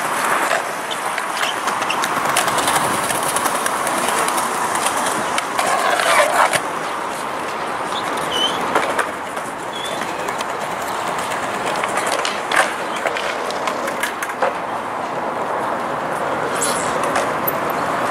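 Open-air city street ambience on a paved square: a steady wash of traffic and wind noise, with scattered clicks and knocks and a few short high chirps about halfway through.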